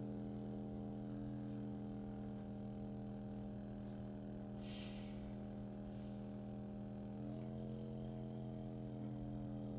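Steady electric hum of a handheld vibration massager's motor, its pitch stepping up slightly about seven seconds in, with a brief soft rustle near the middle.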